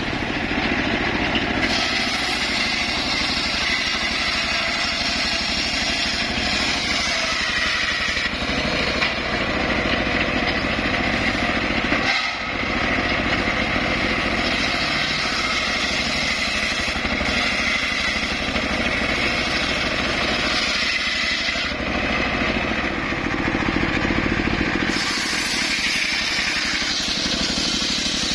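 Homemade circular sawmill running, its blade cutting through timber over the steady drone of its drive motor. The cutting noise changes in pitch and texture a few times as the blade works through the wood, with a brief dip about twelve seconds in.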